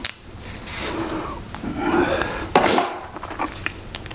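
Plastic zip ties being joined end to end, one pulled through the other's locking head with a short ratcheting rasp, loudest about two and a half seconds in, among smaller clicks and plastic handling noise.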